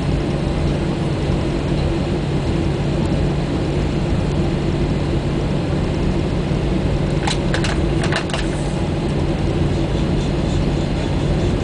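Airbus A320 cabin noise while taxiing: a steady hum and rumble of the engines at low power, with a few sharp clicks about seven to eight seconds in.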